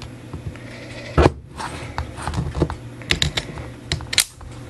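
Snips cutting through a wound steel clock mainspring: sharp metallic snaps, the loudest about a second in and again near the end, with smaller clicks and rattles between as cut loops of spring spring loose. The spring is still under tension and is being cut out rather than let down.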